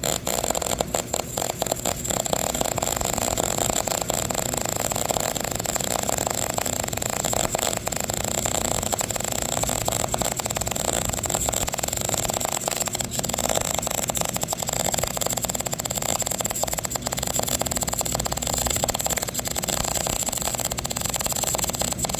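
MIG welding arc crackling and sputtering steadily without a break while filling a hole with weld, with a steady high-pitched whine underneath.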